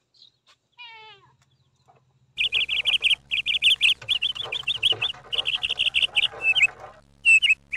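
Budgerigars chattering in quick, high-pitched chirps, starting a couple of seconds in.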